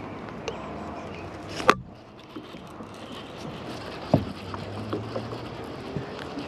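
Steady rain falling on the water and the kayak, with a loud sharp click a little before two seconds in and another just after four.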